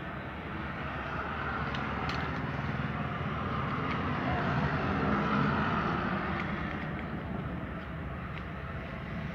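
A motor vehicle's running noise that swells to a peak about five seconds in and then eases off, with a few faint clicks.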